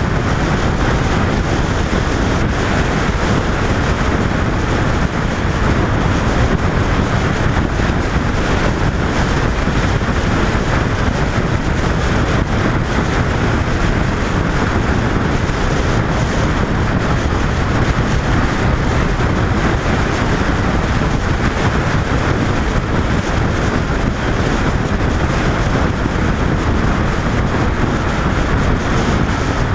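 Steady wind rush on the microphone of a camera mounted on a 2005 Honda VFR800 motorcycle at road speed, with the bike running beneath it. It stays even throughout, with no gear changes or revving standing out.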